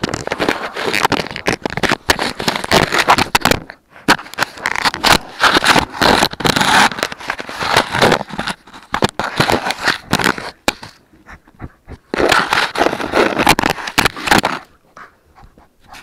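Puppies chewing and mouthing an action camera right against its microphone: dense crackling, scraping and clicking of teeth on the plastic housing, broken by a few short pauses.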